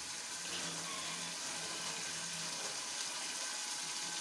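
Onions and garlic frying in a large aluminium pot, a steady even sizzle while they lightly brown.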